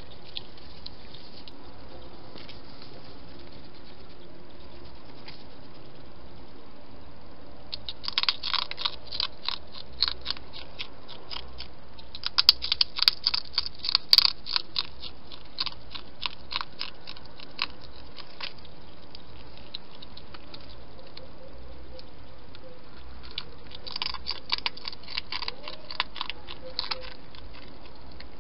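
Hedgehog crunching dry food from a dish: rapid, crisp chewing clicks in two spells, a long one starting about eight seconds in and a shorter one near the end.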